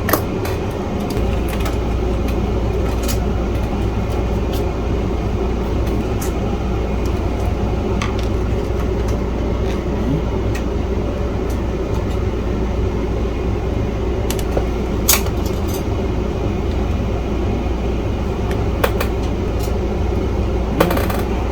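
A steady mechanical hum, like a fan running, that comes in about a second in, with a few scattered sharp clicks and taps from tools working on the metal RF shield.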